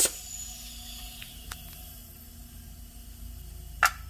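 A hiss of compressed air cuts off right at the start, followed by a faint steady hum with a few light clicks and one sharp click near the end as an air compressor's regulator and hose fittings are handled.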